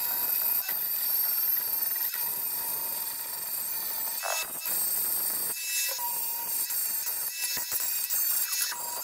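Angle grinder cutting steel plate: a steady high whine over a grinding hiss. The grinding eases off after about five and a half seconds.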